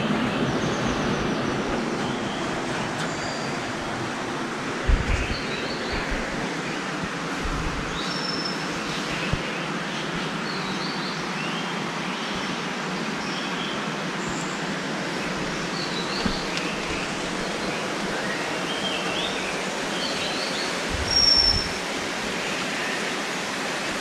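Steady rush of river water falling, with birds chirping in short calls here and there over it. A couple of low bumps, about five seconds in and near the end.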